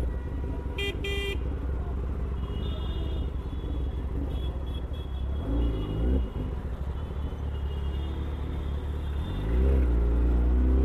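Kawasaki ZX-10R's inline-four engine idling with a steady low rumble, giving a brief rise in revs around six seconds, then revving up and staying louder near the end. Two short horn toots come about a second in.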